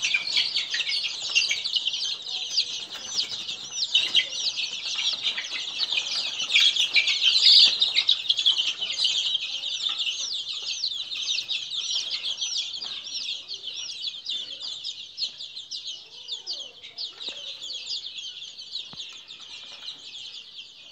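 A flock of young chicks peeping continuously, many high, short peeps overlapping. The peeping grows fainter over the second half.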